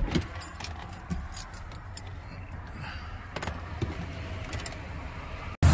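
Car keys jingling and clicking as they are handled inside a car cabin, over a low steady hum. There is a thump right at the start and a few sharp clicks scattered through.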